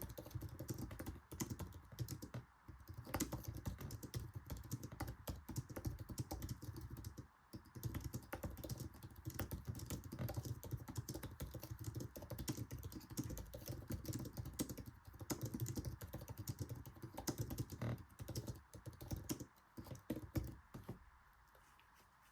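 Fast continuous typing on an Apple Magic Keyboard, a rapid run of light clicks from its low-profile scissor-switch keys. It breaks off briefly twice, then thins out and stops near the end.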